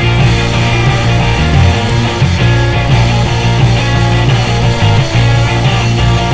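Loud rock music soundtrack.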